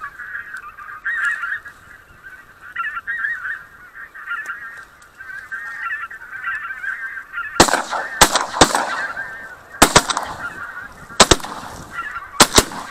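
White-fronted geese honking continuously, then, a little past halfway, a rapid volley of about eight shotgun shots from the hunters firing at the incoming geese.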